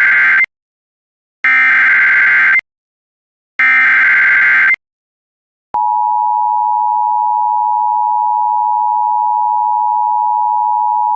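Emergency Alert System SAME header: three bursts of buzzing digital data tones of about a second each, the first already under way. About six seconds in, the steady EAS attention tone begins and holds, announcing an emergency alert that is about to be read.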